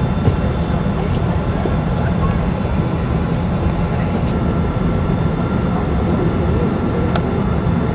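Steady low rumble inside a jet airliner's cabin as it taxis with its engines running, with a thin steady whine over it.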